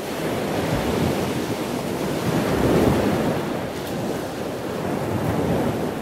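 Ocean surf washing in, with wind: a steady noisy rush that swells to a peak about halfway through and then eases.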